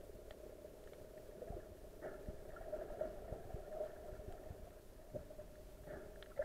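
Muffled underwater sound recorded by an action camera in its waterproof case: a faint steady hum with scattered soft knocks.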